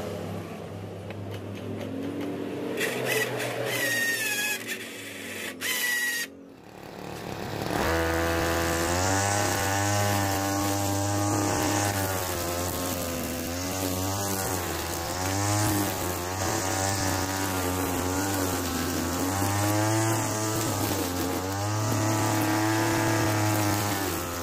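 Small TU26 two-stroke engine on a homemade remote-controlled lawn mower running, its speed rising and falling. It breaks off briefly about six seconds in, then runs again more loudly with the pitch wavering.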